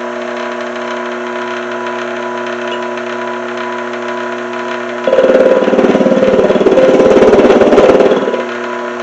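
Mini lathe motor running with a steady hum. About five seconds in, the cutting tool bites into the lumpy weld on the spinning bolt and a loud, rough cutting noise lasts about three seconds before the hum is heard alone again.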